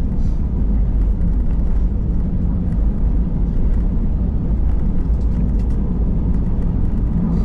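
Steady low rumble of a jet airliner heard from inside the passenger cabin, on the ground just after touchdown.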